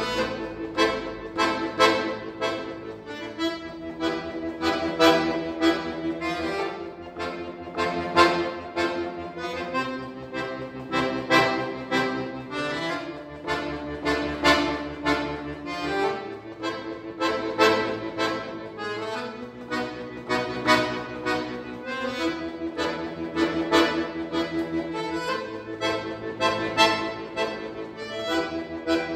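Chromatic button accordion played solo: quick, sharply accented notes and chords over held bass notes that change every few seconds.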